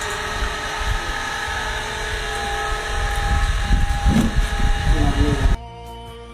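A steady machine hum with several held tones over a low rumble, with heavier irregular knocks and rumbling near the end. About five and a half seconds in it cuts off suddenly, and background music with singing takes over.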